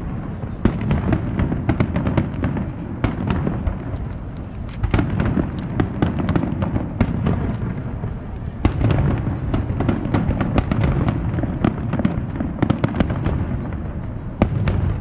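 Aerial fireworks display: shells bursting in a steady barrage, a dense run of sharp bangs and crackles over a continuous low rumble, with heavier booms every few seconds.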